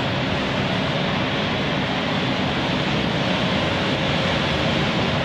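Steady airport apron noise heard through a terminal window: jet aircraft engines running and ground vehicles, with no single event standing out.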